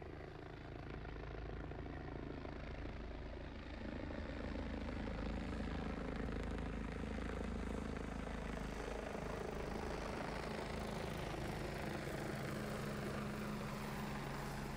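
Agusta A109 military helicopter flying low overhead, its rotor and turbine noise growing louder about four seconds in and then holding steady.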